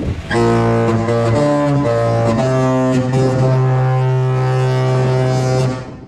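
Disney Dream cruise ship's musical horn sounding a tune: a few short notes of changing pitch, then one long held note that cuts off sharply near the end.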